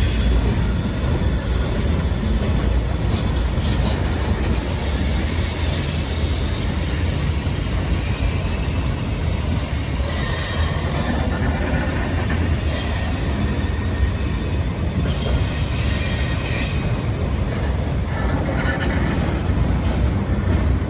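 Freight train cars rolling past on the rails: a steady, loud rumble with high wheel squeal over it.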